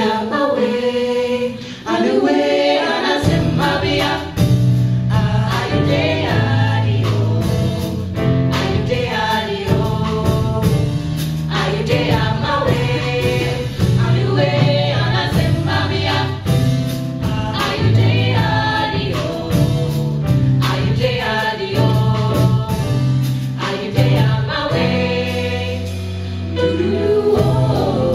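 Vocal jazz ensemble singing a wordless close-harmony arrangement into microphones, mixed female and male voices. A steady low bass line comes in about three seconds in.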